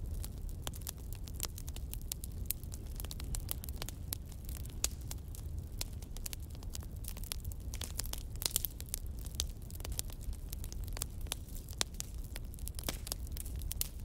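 Crackling wood fire: a constant, irregular run of sharp pops and snaps over a low steady rumble.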